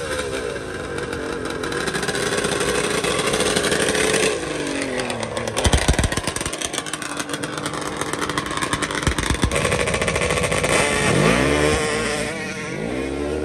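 Modified ATV drag-racing engines revving hard, their pitch climbing and falling again several times, with a rough, rapidly pulsing stretch in the middle.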